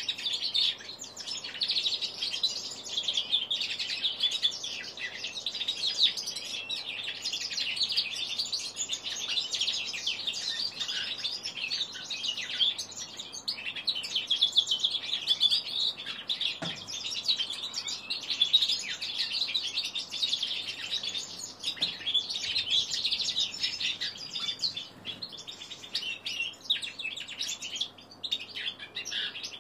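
Young male common linnet × canary hybrid, about three months old, learning its song: a long, near-continuous run of rambling, high-pitched twittering and chattering with only brief breaks.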